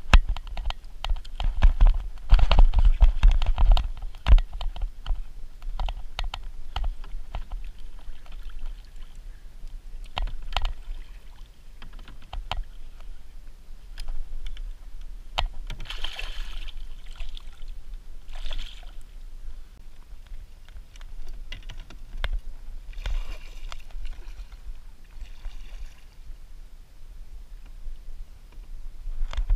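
Handling noise on a plastic kayak: scattered clicks and knocks of paddle and fishing gear against the hull, with a few swishing splashes of paddle strokes in the water. The knocking is heaviest near the start.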